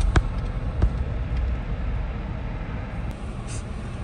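Jeep Wrangler driving, heard from inside the cab: a steady low rumble of engine and road noise. Two sharp clicks come in the first second.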